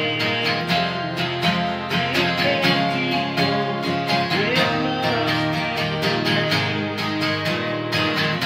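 Two acoustic guitars playing a country tune together, strummed and picked in a steady rhythm.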